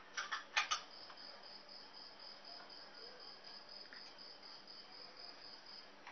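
Faint, evenly pulsing high chirping, insect-like, running steadily, with a few light clicks in the first second.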